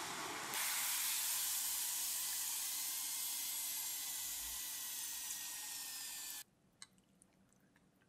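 French fries deep-frying in hot oil, a dense bubbling sizzle. About half a second in it changes to a brighter, steady hiss as the wire basket of fries is lifted out of the oil, easing slowly. It stops suddenly near the end, leaving near quiet with a few faint clicks.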